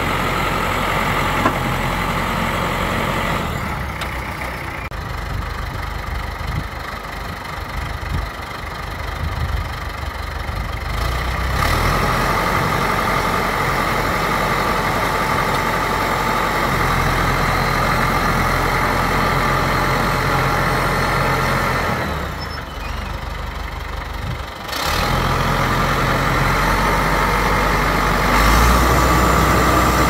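John Deere 550-C crawler bulldozer's diesel engine running steadily, dropping quieter twice for several seconds (near the start and about three quarters of the way through) and then picking back up.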